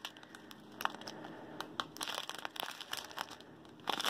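Small plastic bags of diamond-painting drills, joined on a labelled paper strip, crinkling quietly as they are handled, with scattered light clicks and a louder crinkle near the end.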